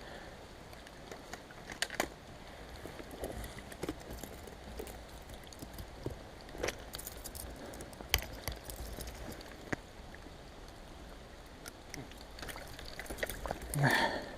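Scattered light clicks, clinks and knocks from the angler's fishing gear and handling as he moves, over faint river water, with a short grunt-like voice sound near the end.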